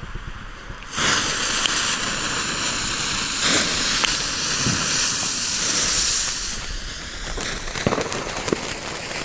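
Small firework ground fountains hissing as they spray sparks. The hiss starts suddenly about a second in and eases after about six seconds, with a few sharp crackles near the end.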